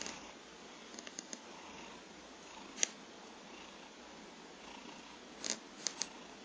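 Domestic cat snoring in its sleep, a steady breathy rasp, with a few short sharp clicks about a second in, near three seconds and near the end.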